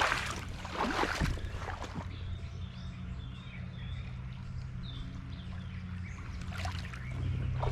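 Boots wading and splashing through shallow creek water, in the first two seconds and again near the end, with a quieter stretch between where faint bird chirps come through over a steady low hum.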